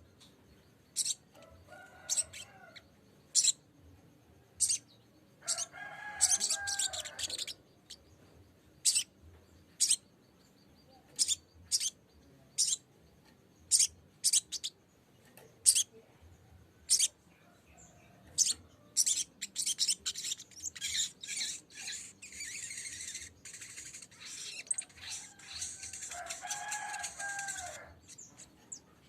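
Sogok ontong (sogon) bird calling: sharp, high chips about once a second, which thicken into a fast run of chattering notes about two-thirds of the way in, with a couple of lower warbled phrases. A lure call meant to draw a rival into singing.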